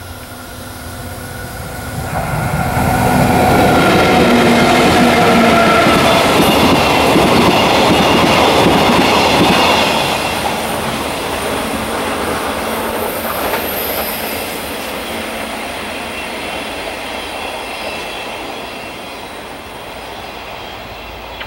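A freight train hauled by two EF64 electric locomotives, with five Taki tank wagons, passing at close range. The locomotives' hum and the running noise swell over the first few seconds and stay loud as the wagons go by. After that the sound fades away, with a thin high wheel squeal from the curve.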